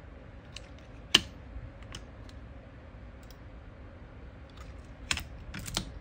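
Scattered sharp clicks and taps of small hard objects being handled: a loud click about a second in, a lighter one shortly after, and a quick run of three near the end.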